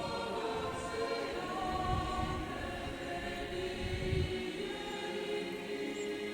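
Background choral music: slow, sustained voice-like chords.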